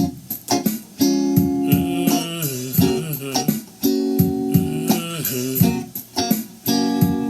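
Guitar playing chords in a groove, a new chord about every second with short sliding notes between them.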